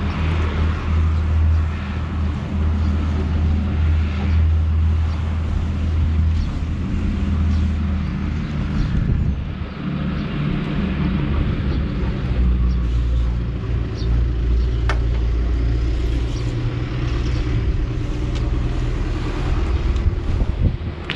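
Tractor engine running steadily, its note dipping briefly about ten seconds in and then settling at a slightly different pitch.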